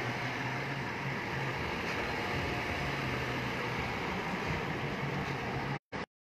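Toyota Land Cruiser's 4.0-litre V6 petrol engine idling steadily with the bonnet open. The sound cuts off abruptly near the end.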